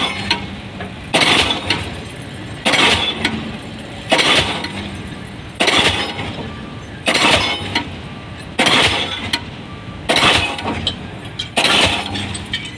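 Diesel pile hammer driving a 500 mm round concrete pile: a sharp metallic blow about every one and a half seconds, about nine in all, each ringing out briefly before the next.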